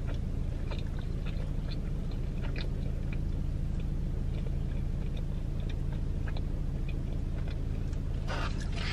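A person chewing a soft stuffed pizza-dough bite with the mouth close to the microphone, small wet clicks throughout, over a steady low hum inside a car. A brief rustle comes near the end.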